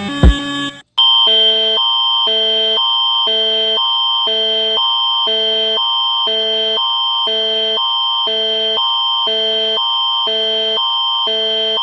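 Electronic emergency alert alarm tone starting about a second in, after a few beats of music cut off: a steady high tone with a lower chord of tones pulsing on and off about one and a half times a second.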